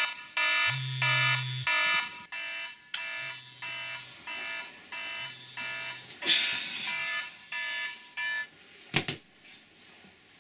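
iPhone alarm tone beeping in a repeating pattern of short pitched notes, a few a second, louder for the first couple of seconds and then quieter, until it stops about eight and a half seconds in. A rustle about six seconds in and a sharp click near the end.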